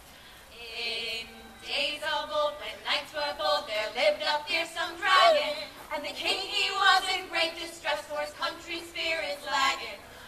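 A group of women singing unaccompanied, starting about half a second in.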